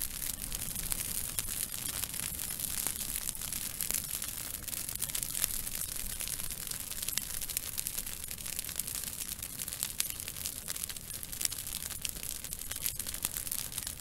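Wood fire of burning twigs crackling steadily, with frequent small pops and snaps over a constant hiss.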